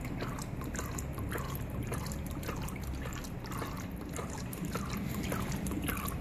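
Transformer oil trickling in two thin streams from the drain holes of an X-ray machine's high-voltage transformer tank into a bucket, with a constant patter of drops and small splashes on the oil surface.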